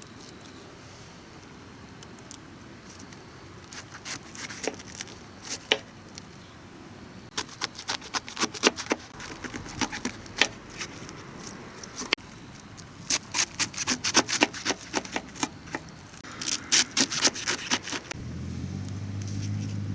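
Bursts of quick light clinks and scrapes, like camp cookware and utensils being handled. Near the end a low, steady engine hum of a vehicle comes in.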